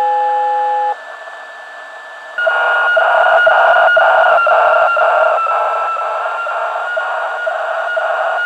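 HF weather fax signal received on a uBITX transceiver in upper sideband and heard through its loudspeaker: a steady, dense buzz of tones with a regular beat about twice a second, coming in about two seconds in. Before it there is a short steady beep, then a thin whistle over static.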